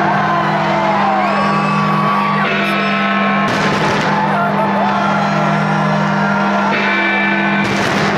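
Loud music accompanying a fireworks display, with held low notes and whoops and shouts over it. A few sharp bursts cut through about three and a half seconds in and again near the end.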